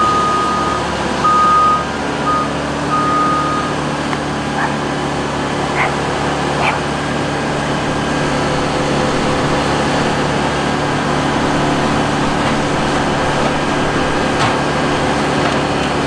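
A Bandit wood chipper and a Kobelco SK75SR excavator running together: a loud, steady diesel drone. A warning beeper sounds four times in the first four seconds, and a few sharp knocks come later.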